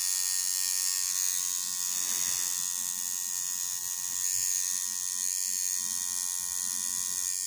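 Tattoo machine buzzing steadily while its needle works ink into the skin.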